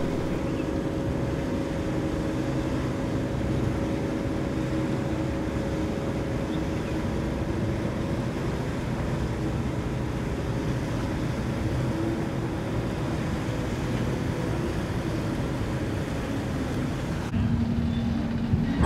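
Steady marine engine drone, a low hum of several tones over a broad rushing noise. It changes abruptly near the end to a duller, single-toned hum.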